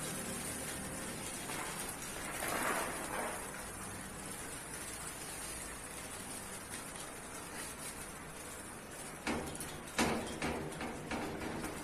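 Steady rustling hiss of a swarm of desert locusts flying and crawling over a rooftop. It swells briefly about two seconds in, and a few sharp knocks come near the end.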